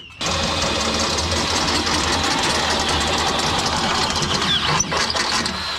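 Craftsman power drill running steadily under load, boring a hole through a car bumper; it starts just after the beginning and cuts off abruptly just before the end.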